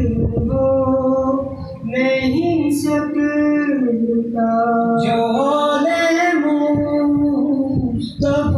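A man singing a manqabat, a devotional praise poem, without instruments, in long held notes that slide from one pitch to the next, with short breaths between lines.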